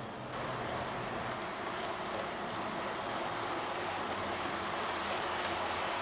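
Model train running on its track: a steady whir of the locomotive motor and wheels rolling on rails. It steps up just after the start and then grows slowly louder.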